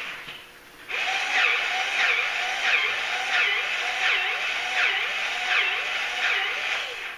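Hand grease gun with a needle adapter being pumped into a hinge grease hole on a Boss V-plow: a steady hiss with a swooping squeak repeating about every 0.7 s, about eight strokes, starting about a second in. The grease already in the hinge is thick and resists being pushed through.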